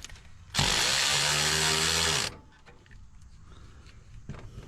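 A cordless power tool runs steadily for under two seconds, turning out a bracket bolt on a Ford engine, then stops.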